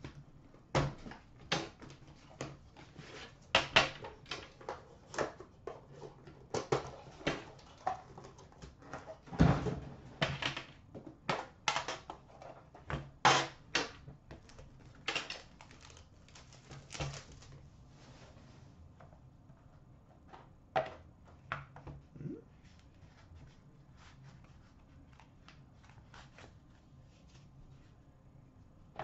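Unpacking a shrink-wrapped metal Upper Deck The Cup card tin: irregular crackling of plastic wrap and clicks of the metal tin and cardboard box being handled, with one heavier thud about nine seconds in. The handling noises thin out after about twenty seconds.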